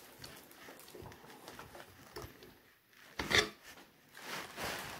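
Gears in a Hangkai outboard's lower unit turned by hand: the replacement pinion meshing with the drive gear in faint rubbing, crunchy clicks, with a louder clack a little over three seconds in. The mesh is still crunchy with the new gear, which the owner hopes will wear in.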